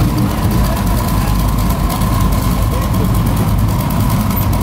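Split-window Volkswagen bus's air-cooled flat-four engine running steadily at low speed as the lowered bus creeps past.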